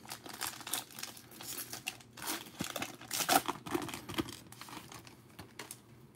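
Foil wrapper of a 2020 Prizm hobby pack of football trading cards being torn open and crinkled by hand: a dense run of irregular crackles and rips, loudest a little past the middle and dying away near the end.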